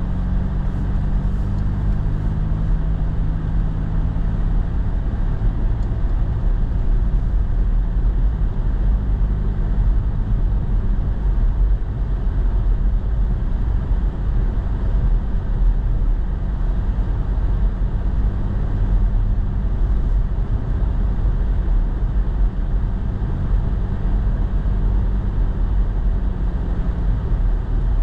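Truck driving, heard from inside the cab: a steady low engine hum and road noise, with an engine tone that swells and fades now and then.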